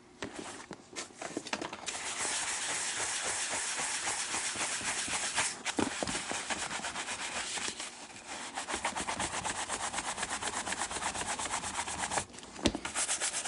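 A stiff bristle brush scrubbing over the leather of a baseball glove to polish it. After a couple of seconds of light rustling it settles into a steady scrubbing hiss, then into quick, even back-and-forth strokes, with a short pause and a knock near the end.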